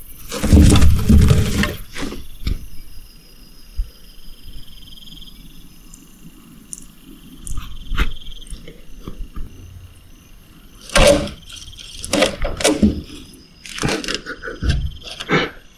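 Handling noise at a glass terrarium: a loud rustle and bumps in the first two seconds, then scattered knocks, taps and rubs against the glass and its plastic frame, coming thicker over the last five seconds.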